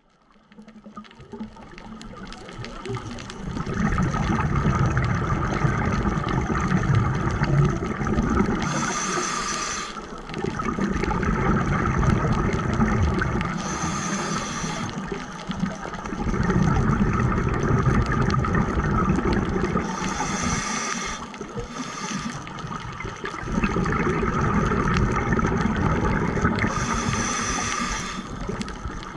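Scuba diver's regulator breathing underwater: about four long bubbling rumbles of exhaled air, with short high hisses between them.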